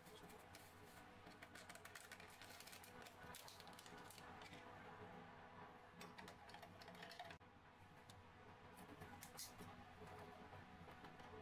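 Faint crinkle of an instant coffee sachet being emptied into a drinking glass, then a metal spoon stirring, clinking and scraping against the glass in quick runs of small clicks that break off briefly about two-thirds of the way through.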